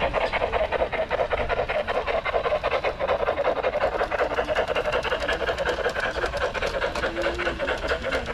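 Garden-scale model steam locomotive chuffing at a quick, steady pace of about five beats a second as the train runs along the track.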